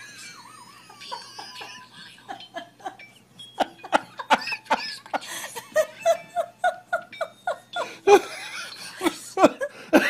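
People laughing in quick repeated bursts, growing louder and more frequent in the second half.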